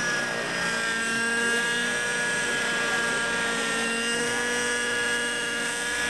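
Radio-controlled model helicopter flying aerobatics. Its engine and rotor make a steady, high-pitched whine of several tones that wavers slightly in pitch as the manoeuvres load it.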